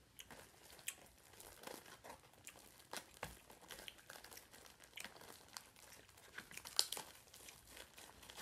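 Clear plastic wrapper around a stack of hard corn taco shells crinkling as it is pulled open, a run of irregular sharp crackles.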